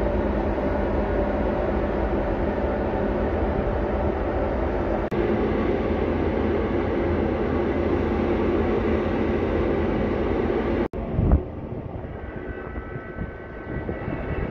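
Steady rumble of the ferry Salish Raven underway, heard from its open deck with wind on the microphone. About eleven seconds in it cuts abruptly to a quieter rumble with a faint hum.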